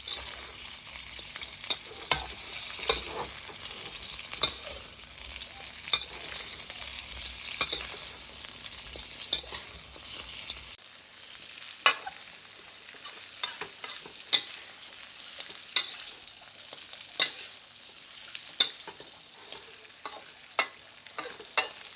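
Snapping turtle meat frying with lemongrass and dried chili, sizzling steadily, while a spatula clacks and scrapes against the pan every second or two as it is stirred.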